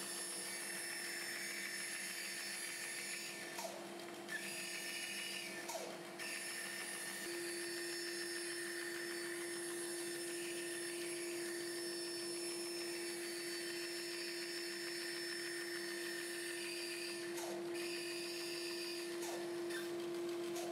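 Band saw running steadily as its fine-toothed blade cuts a curve through melamine-faced MDF, the board turned slowly on a circle jig. A steady hum that grows stronger about seven seconds in, with a few brief faint sounds near the start and near the end.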